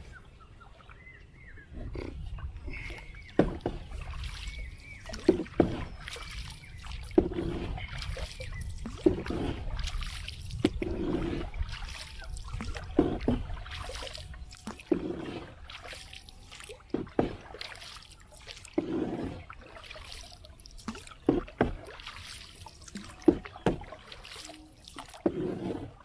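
A bamboo pole used as a paddle from a small wooden boat, dipped and pulled through the water with a splashing stroke about every two seconds.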